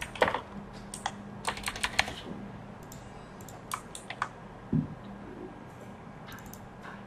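Typing on a computer keyboard: a quick run of keystrokes in the first two seconds, then a few scattered single key presses, with one dull knock near the middle.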